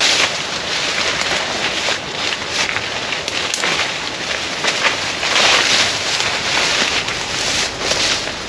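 Leaves, twigs and branches of thick bush rustling and crackling as a person pushes through the scrub, louder about halfway through and again near the end.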